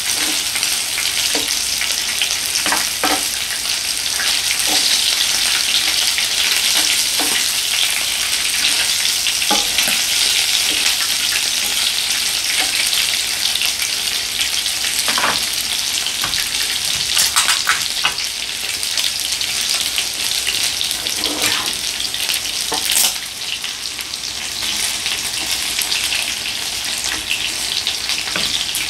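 Beef intestines and rice cakes sizzling steadily on a tabletop grill pan, with a few scattered clicks as a spoon and chopsticks tap against the pan.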